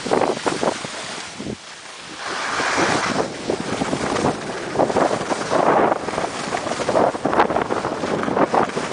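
Skis scraping and hissing over packed snow through a series of turns, each turn a swelling rush of noise, with wind buffeting the microphone; the sound eases briefly about a second and a half in.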